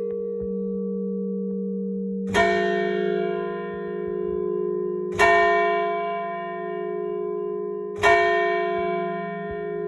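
Large bronze church bell struck three times, a stroke about every three seconds, each one ringing on in a long, slowly dying hum. This is one set of a three-times-three tolling.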